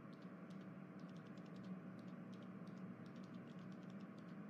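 Faint, irregular light clicks, several a second, over a low steady hum.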